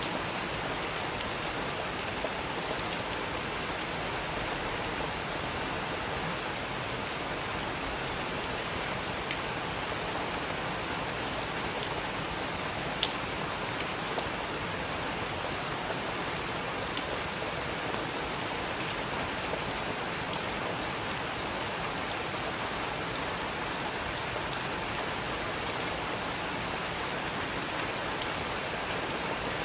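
Steady rain falling, with occasional sharp crackles and pops from a wood fire; the loudest pop comes about halfway through.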